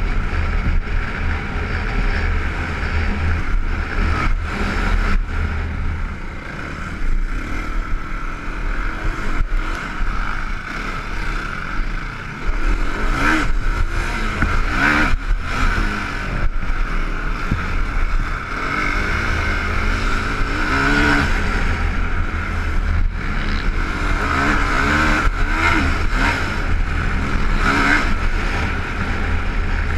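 Can-Am DS450 quad's single-cylinder four-stroke engine revving up and down under racing load, with heavy wind rumble on a helmet-mounted microphone and scattered knocks from the rough track.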